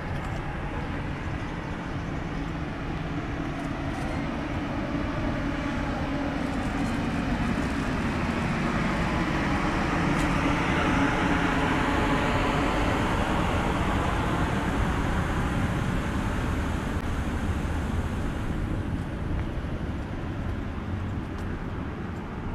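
A passing vehicle: its rumbling noise builds slowly to a peak about halfway through and then fades away again.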